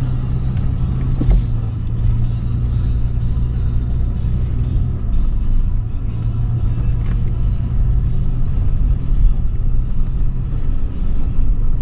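A 2013 Toyota 4Runner SR5's V6 engine runs with a steady low drone as the SUV drives over sand dunes.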